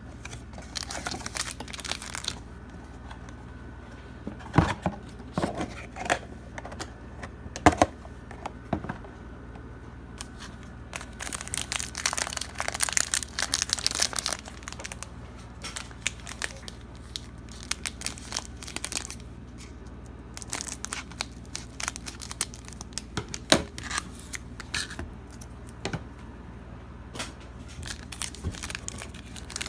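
Trading card pack wrappers being torn open and crinkled, with scattered sharp taps and clicks as the cards are handled, and a longer run of tearing and crinkling about halfway through.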